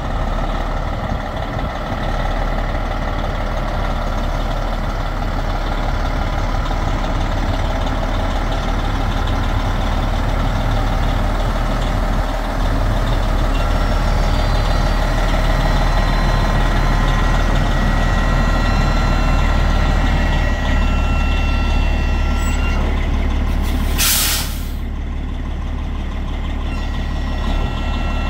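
Diesel engine of a 1999 Freightliner semi tractor idling steadily, with a short, sharp hiss of air released from its air brake system near the end.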